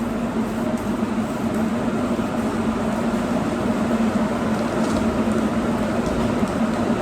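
Steady machine hum with a constant low drone, like a workshop fan or compressor running.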